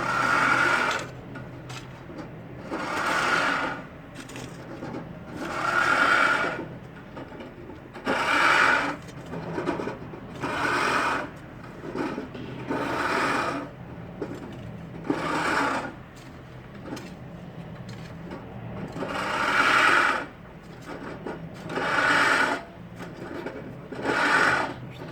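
Rhythmic scraping strokes, each about a second long, repeating every two to two and a half seconds.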